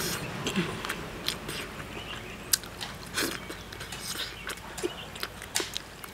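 A person chewing a mouthful of soft steamed egg with minced pork and yam, with scattered small mouth clicks and smacks.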